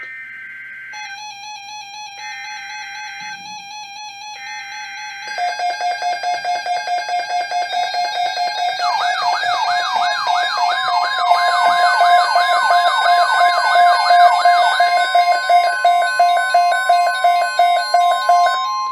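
Weather radio alert tones, several receivers sounding together ahead of a tornado watch message: three short data bursts (the SAME header), a warbling alarm tone, then a fast pulsing beep that joins in and grows louder. In the middle a rapidly repeating rising sweep is added, and near the end a steady single alert tone remains.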